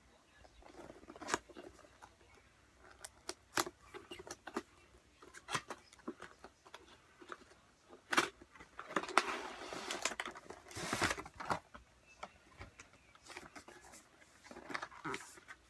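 A cardboard headphone box and its packaging being handled and opened: scattered clicks and taps, with a longer stretch of rustling and scraping about nine to eleven seconds in.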